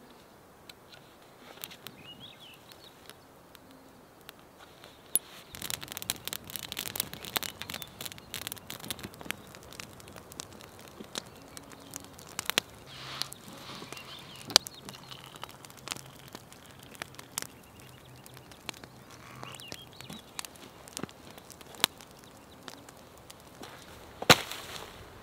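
Wood campfire crackling and popping with many irregular sharp snaps, starting about five seconds in. Near the end come a few louder knocks.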